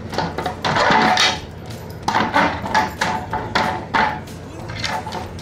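Clear plastic bottles on a wooden dowel clattering and knocking against a pine frame in irregular bursts as a beagle noses and paws them round, the plastic crackling with each knock.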